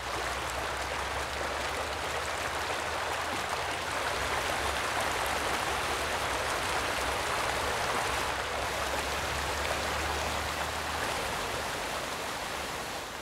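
Fast, turbulent floodwater rushing: a steady, dense wash of water noise that eases slightly near the end.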